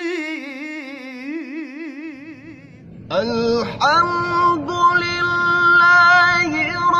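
A male Quran reciter's voice holds a long melismatic note with a wide, wavering vibrato; it fades out about three seconds in. Then a second male voice sings a strong, steady high note with a few brief ornamental dips.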